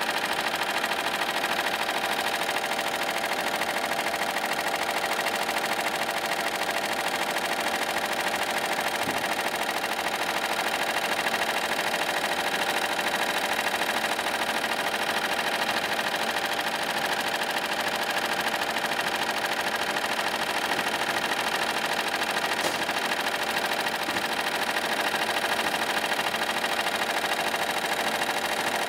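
Barudan multi-needle commercial embroidery machine running, stitching lettering onto a hooped shirt: a steady, rapid mechanical chatter of needle strokes.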